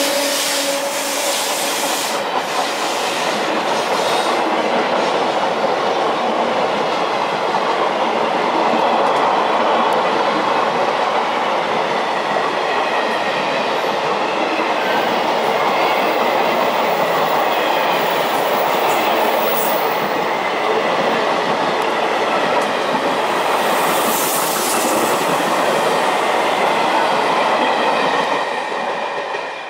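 Electric-hauled express passenger train passing close by at speed without stopping: a loud, steady rush of coach wheels running on the rails. It falls away near the end as the last coaches go by.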